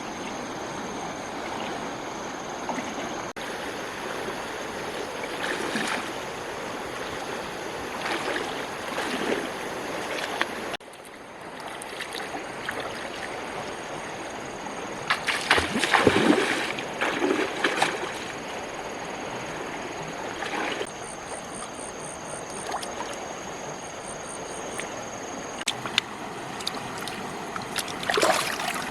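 Water running and sloshing, with bouts of splashing; the loudest splashing comes about halfway through.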